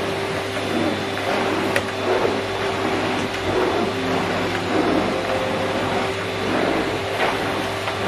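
Miele C3 canister vacuum cleaner running steadily, its floor head pushed back and forth over carpet, with a short click just under two seconds in.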